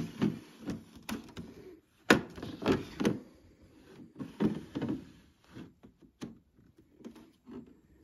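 The plastic sliding air filter of a MEACO dehumidifier being handled and slid in its slot: a run of irregular plastic clicks, knocks and scrapes, the sharpest about two seconds in, then thinning out.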